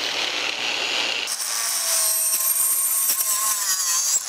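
Cordless angle grinder with a carbide-tipped multi-tip saw blade, running free and then, from about a second in, cutting through PVC pipe; the sound changes abruptly to a brighter, louder hiss as the cut begins.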